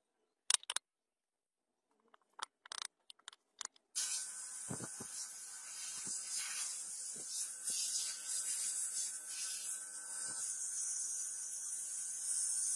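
A few light clicks and taps, then a steady high hiss of a pressurised jet that starts abruptly about four seconds in and stops suddenly near the end.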